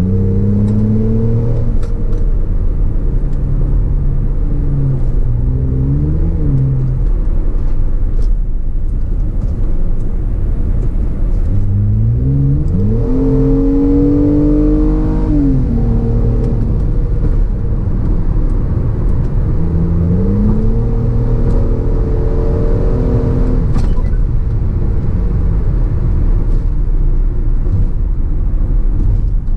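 Hyundai Azera V6 with its rear mufflers removed, accelerating hard through several gears: the engine note climbs in pitch again and again and drops back at each gear change, loud and raw from the near-open exhaust.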